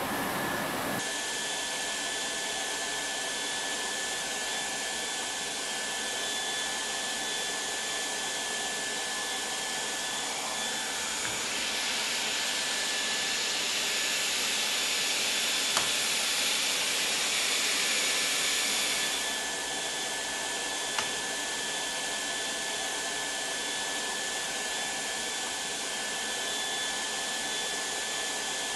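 Variant T1 hot-air tarpaulin welding machine running, its blower giving a steady hiss with a thin high whine. The hiss grows louder for several seconds in the middle, then settles back.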